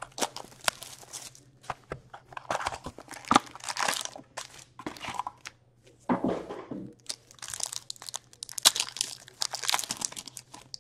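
Cardboard hockey card box torn open and its foil card packs handled: irregular bursts of tearing, crinkling wrappers and light clicks and taps.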